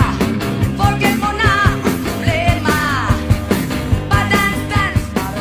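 Background music: a song with a sung vocal melody over a steady beat.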